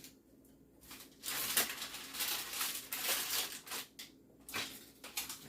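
Crinkling, rustling handling noise that starts about a second in and lasts nearly three seconds, followed by a couple of light knocks near the end.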